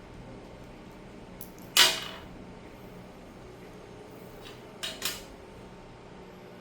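Laptop screen parts being handled and fitted: one sharp clack, then about three seconds later two lighter clicks close together.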